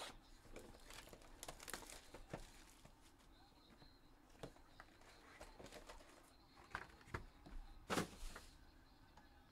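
Faint handling of a 2021 Upper Deck Goodwin Champions hobby box as it is opened and its wrapped card packs are taken out: scattered scratches, rustles and taps, the loudest about eight seconds in as the packs are set down in a stack.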